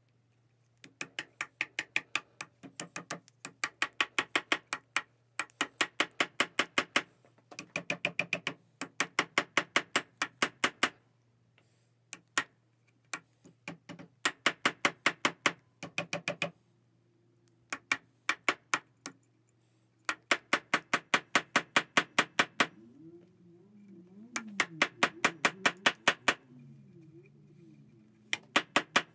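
A small hammer tapping a wooden wedge down into the kerf of a hickory hammer handle, wedging it tight in the head's eye. The taps come in quick runs of several a second with short pauses between them.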